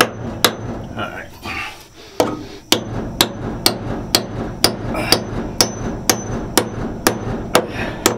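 Claw hammer swung left-handed at a nail in a wooden door frame: sharp blows about two a second, with a pause from about half a second to two seconds in. Many of the blows miss or glance off the nail; the hammerer counts hitting it only about one time in four.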